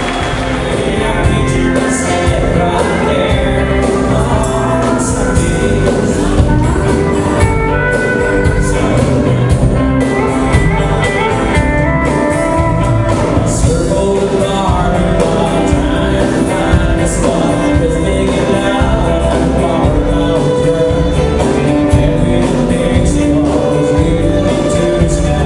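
Live country band playing amplified: electric guitars and a drum kit keeping a steady beat, with a singer.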